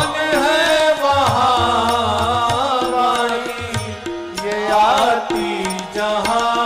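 Hindi devotional song (bhajan) music between sung lines: a bending melodic line over held notes, with a low drum beat.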